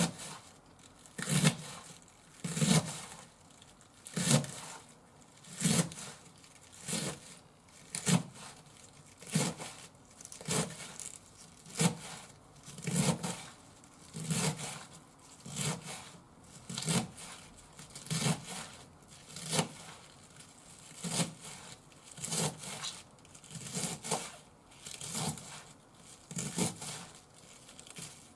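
Kitchen knife shredding a cabbage on a cutting board: one cut through the leaves onto the board a little more than once a second, slow and even.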